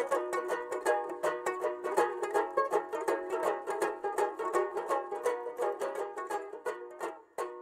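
Background music: a fast run of picked notes on a plucked string instrument, banjo-like, ending near the end with a last note ringing out briefly.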